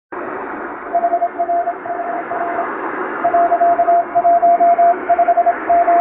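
Japanese (wabun) Morse code sent by hand on a straight key: one steady beeping tone keyed in dots and dashes, in the manner of a shortwave radiotelegram, over a constant shortwave-style hiss. The keying starts about a second in.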